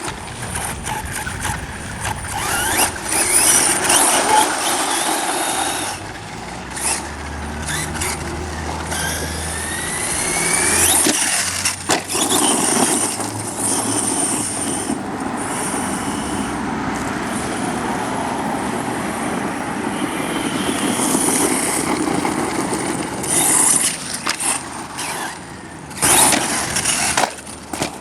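Redcat Volcano EPX Pro brushless electric RC monster truck being driven hard off-road: the electric motor and gears whine, pitch rising with each burst of throttle, over the steady noise of tyres churning dirt. A few sharp knocks are heard, typical of the truck landing small jumps or hitting things.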